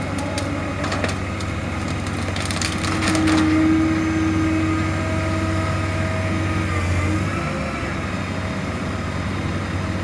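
Wood of a fallen tree cracking and splintering in two clusters of sharp snaps, just after the start and about two and a half seconds in, over the steady drone of a running engine.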